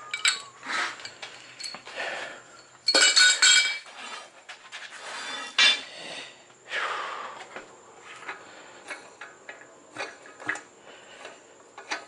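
Steel parts of a manual mini tire changer and its bar clinking and clattering against each other and the steel wheel rim as they are handled, with the loudest clatter about three seconds in and lighter metal ticks after.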